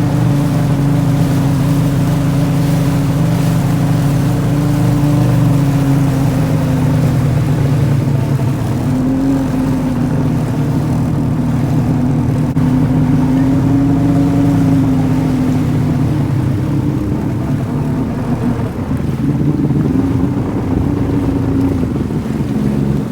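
1998 Kawasaki STX1100 jet ski's two-stroke engine running under way, its pitch rising and falling gently as the throttle varies.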